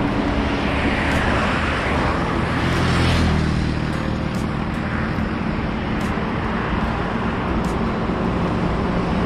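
Highway traffic passing: a steady rush of tyres and engines, swelling as a vehicle goes by about three seconds in, with the low drone of heavy trucks approaching after it.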